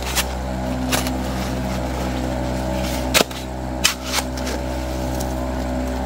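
A 12-volt vibrating motor bolted to a bucket classifier hums steadily. A shovel digs into gravel and clay with several sharp scrapes and knocks, the loudest about three seconds in.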